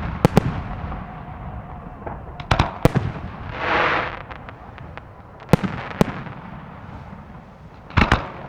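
Fireworks salute: sharp bangs of shells bursting in quick pairs and small groups, with a brief hissing swell about midway.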